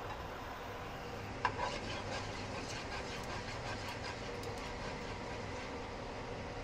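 Range hood fan running steadily. About one and a half seconds in there is a knock, then a few seconds of clicking and scraping as a spatula stirs in the cooking pot.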